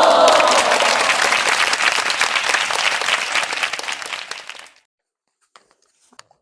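Crowd cheering and applauding: shouts at first, then dense clapping that fades and stops about four and a half seconds in, followed by a few faint clicks.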